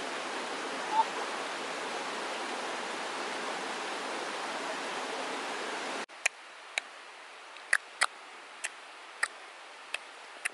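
Waterfall on a creek rushing steadily, with one brief higher chirp about a second in; the rushing cuts off suddenly about six seconds in, leaving a quiet background with a string of short, sharp clicks about twice a second.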